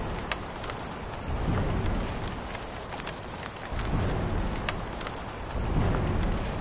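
Steady rain with scattered drop ticks, under low rolls of thunder that swell and fade about every two seconds.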